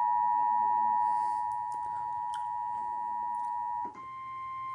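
Emergency Alert System attention signal on cable TV: a steady, piercing electronic alert tone that switches abruptly to a single slightly higher tone near the end, heralding a severe thunderstorm warning.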